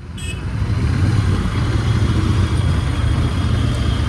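Royal Enfield Continental GT650's parallel-twin engine and exhaust rumbling under the rider as the bike pulls away in traffic, getting louder about half a second in and then holding steady.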